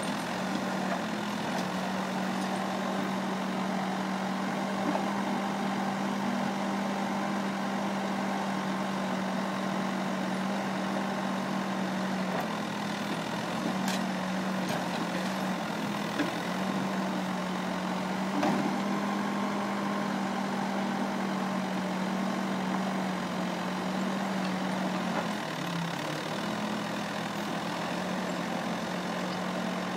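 Diesel engine of an L&T Case backhoe loader running steadily at a constant pitch while the backhoe digs rubble. A few sharp knocks come around the middle, and the engine note dips briefly about three-quarters of the way through.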